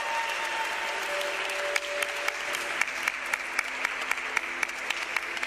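Audience applauding, with sharp individual hand claps standing out more and more from about two seconds in.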